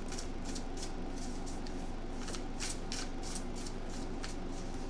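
A tarot deck being shuffled by hand: cards slapping and riffling against each other in a quick, irregular run of short crisp snaps, about three a second.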